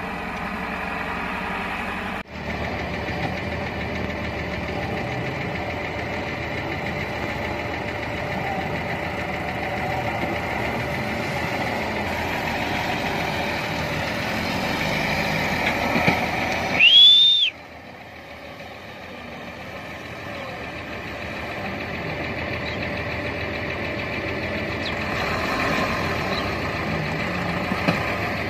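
Massey Ferguson tractor's diesel engine running as it pulls a trolley loaded with soil. About two-thirds of the way through, a short high whistle-like tone rises and falls.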